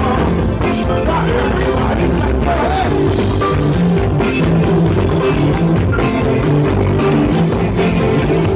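Loud live band playing Haitian praise-and-worship music, with a repeating bass line under the band.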